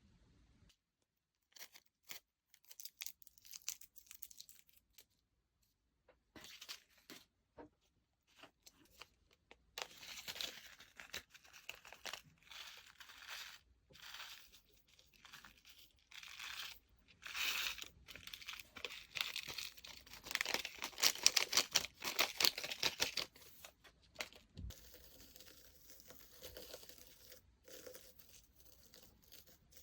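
Slime being squished and stretched by hand: bursts of rapid fine crackling clicks with short pauses between them, densest and loudest about two-thirds of the way through.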